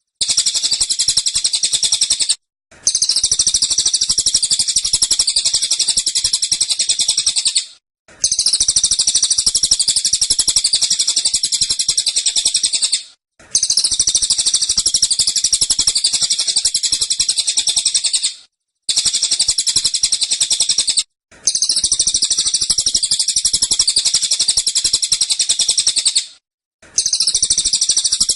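A cililin bird sings its rapid 'tembakan' song: dense, fast strings of high notes in bouts of a few seconds, broken by about six brief pauses.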